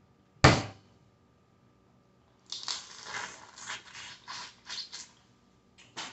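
Boiled crawfish being peeled and eaten close to the microphone: one sharp crack about half a second in, then a quick run of short crackling, sucking sounds as the crawfish is eaten at the mouth.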